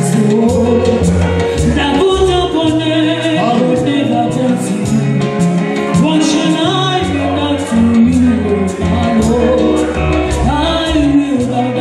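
Upbeat music with a singing voice over a steady beat.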